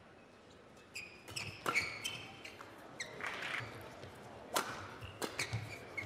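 Badminton rally: a series of sharp racket hits on the shuttlecock at irregular spacing, with short high squeaks from players' shoes on the court mat.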